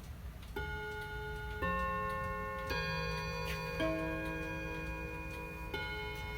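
Hammond electromechanical mantel clock chiming: a sequence of struck notes about a second apart, each ringing on into the next, over the clock's faint ticking.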